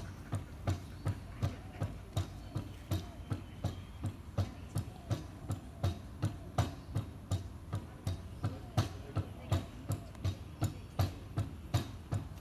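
Outdoor park fitness machine knocking rhythmically as its swinging pedals and handles are worked, about three sharp knocks a second over a low hum. It is noisy, likened to a grinding mill.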